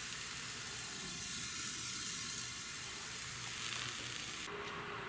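Thin pancake batter sizzling steadily as it fries in an oiled frying pan. The high hiss drops away about four and a half seconds in.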